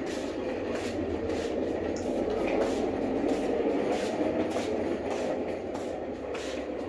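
Hard plastic wheels of a push-along ride-on toy car rumbling steadily over a tiled floor, with light irregular clicks through the rumble.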